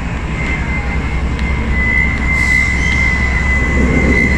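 KTM diesel locomotive's engine running, a steady low rumble with a high whine held over it from about half a second in.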